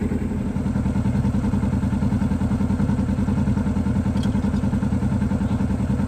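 Buggy's engine running steadily under way, a low drone with a fast, even pulse.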